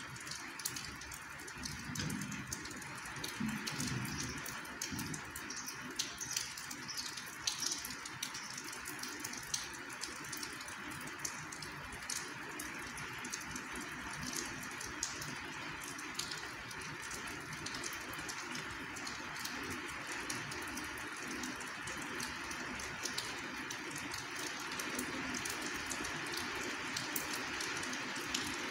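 Rain falling: a steady hiss with many scattered close drop taps.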